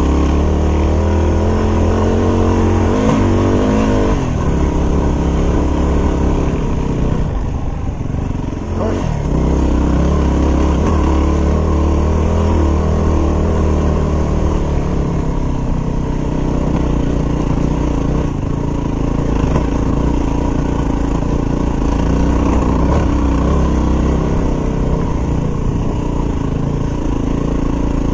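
Yamaha WR250R dual-sport motorcycle's single-cylinder four-stroke engine running as it rides a rough dirt trail, the revs rising and falling a few times as the throttle is worked.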